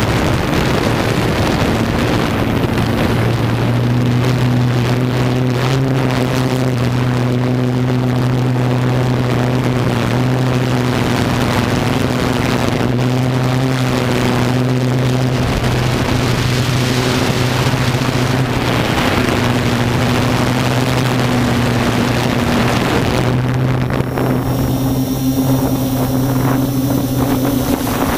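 Multirotor drone's electric motors and propellers humming steadily at an even pitch, picked up by the camera on board, with wind hiss over the microphone.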